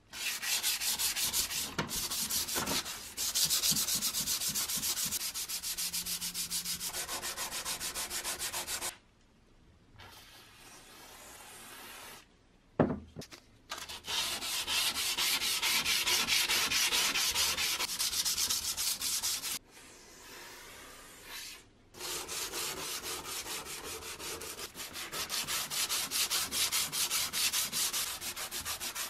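Sandpaper rubbed in quick, even back-and-forth strokes, in three long runs with short breaks between them. A single sharp knock, the loudest moment, falls in the middle break.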